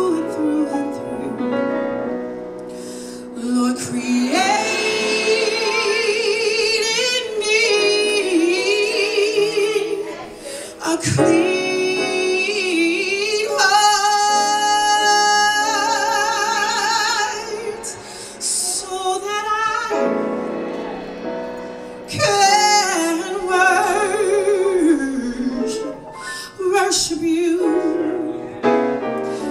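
Live gospel music: female vocals singing long, wavering melodic runs with heavy vibrato over sustained instrumental accompaniment, the singing dipping briefly about ten and twenty seconds in.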